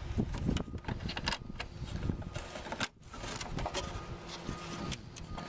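Plastic scraping, rubbing and clicking as an amber indicator lamp unit is pushed out of its Land Rover Defender plastic headlight surround. The handling noise is irregular, with a short lull about three seconds in.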